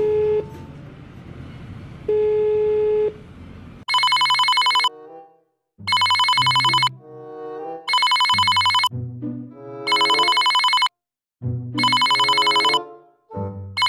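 A phone ringing with a trilling, bell-like telephone ring: five rings, each about a second long and about two seconds apart, starting about four seconds in. Music plays underneath throughout.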